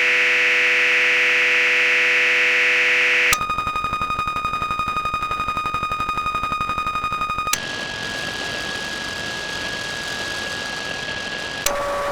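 Electronic static and distorted-signal noise loops played one after another, each a hiss with a steady whine in it, switching abruptly to a new texture three times. The second loop stutters with a fast, fluttering pulse under a high whine.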